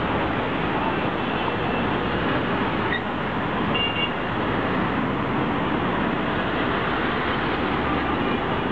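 Dense city traffic with cars driving past close by, a steady roar of engines and tyres. A couple of brief, faint high beeps sound about three and four seconds in.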